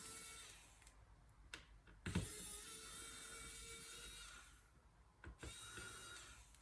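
Small cordless electric precision screwdriver whirring in short runs as it backs out the trackpad screws. A click starts each run. There are three runs: one stops about half a second in, a longer one lasts about two seconds, and a short one comes near the end.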